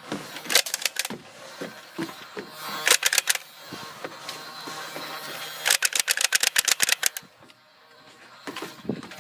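Nerf blaster firing in three bursts of rapid clicks. The longest run, about a second and a half, comes a little past the middle.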